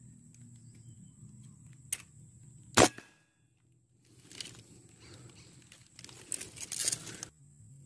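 A single sharp air rifle shot, a short crack about three seconds in. After a brief gap, rustling and handling noise follows.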